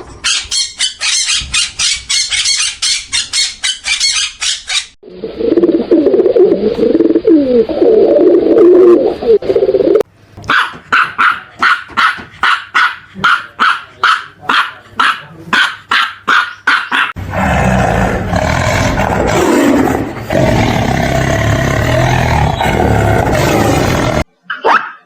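A run of animal calls in several abruptly cut segments. The first is rapid repeated calls about four a second. The second is lower calls that slide in pitch. The third is another fast series of short calls, and the last is a dense, noisy stretch.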